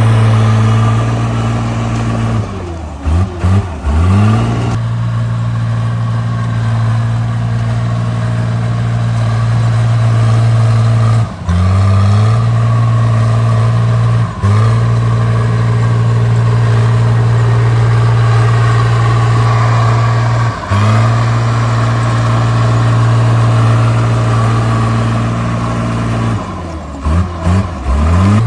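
Diesel engine of a Caterpillar D3C bulldozer running hard at a steady high speed. Its revs drop and climb back up about three seconds in and again near the end, with a few brief dips in between.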